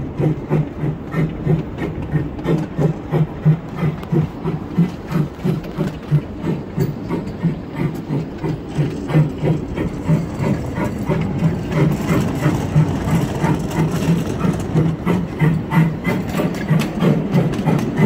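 Ride-on miniature steam locomotive, a Thomas the Tank Engine model, running along its track with a regular beat about three times a second, getting louder over the last few seconds.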